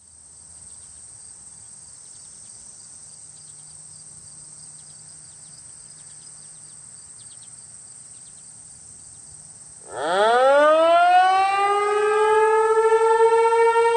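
ASC T-128 outdoor warning siren winding up about ten seconds in: a rising wail that climbs quickly and levels off into one steady tone, the start of the steady alert signal.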